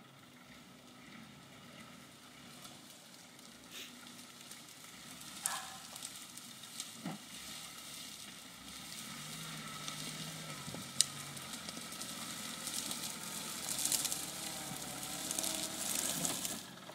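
Footsteps crunching through dry brush and dead leaves, with twigs crackling and snapping, growing louder toward the end. A sharp snap comes about 11 seconds in. A Land Rover Defender's engine idles faintly underneath.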